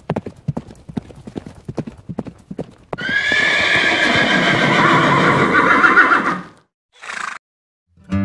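Hoofbeats of several horses moving over grass, a loose run of separate dull thuds. About three seconds in, a loud drawn-out sound with a wavering pitch takes over for over three seconds, followed by a short burst.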